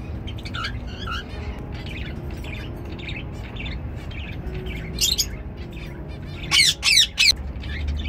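Cockatiel calling: a few soft chirps at first, then a loud shrill call about five seconds in and three more loud shrill calls in quick succession near the end.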